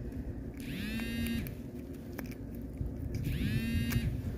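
Mobile phone ringtone for an incoming call: a short melodic ring sounding twice, about two and a half seconds apart.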